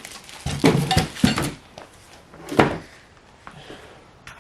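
Metal parts of a garage door opener kit clattering and clinking as they are handled, with a few sharp knocks spread over the seconds.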